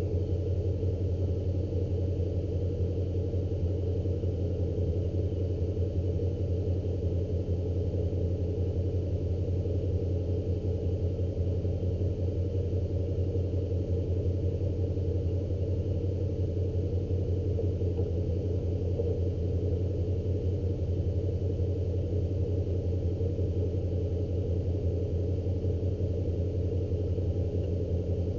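An engine idling steadily: a low, even drone that does not change.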